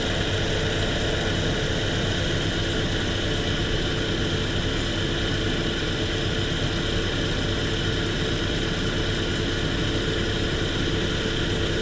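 1997 Saturn SL2's four-cylinder engine idling steadily while the AC system draws in a refrigerant charge through the low side.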